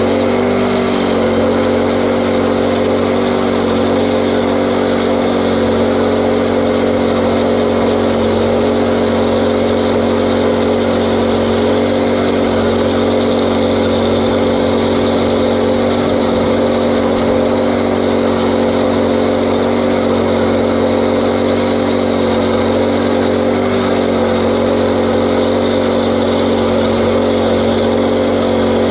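Portable bandsaw mill's small petrol engine running at steady speed under load while the band blade saws lengthwise through a green ironbark log. An even, unbroken drone.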